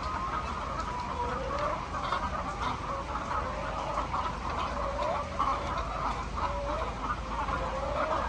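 A flock of chickens clucking and calling over one another in a continuous chorus, with a steady low hum underneath.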